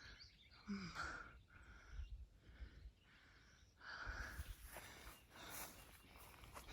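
Faint breathing of a hiker on the move: a series of soft breaths about once a second, the loudest about four seconds in.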